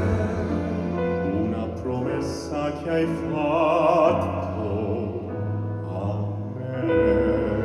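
Male singers in operatic crossover style performing live with an orchestra. About halfway through, one voice holds a note with a wide vibrato over sustained strings and other instruments.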